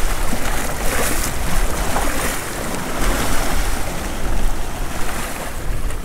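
Sea waves surging and washing over rocks, with wind buffeting the microphone as a low rumble.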